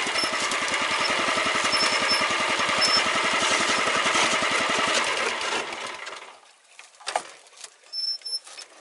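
Small gasoline engine of a frame-mounted power ice auger running steadily as it drills a hole through lake ice, then dying away about six seconds in. A few sharp knocks follow.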